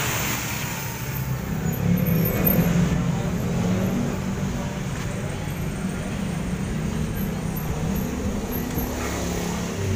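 Steady low mechanical running noise of workshop machinery, an even rumble that does not change through the clip.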